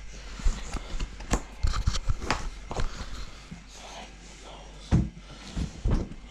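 Handling of a plastic car door window switch and its panel: a string of sharp clicks and taps, with a few heavier knocks about five and six seconds in.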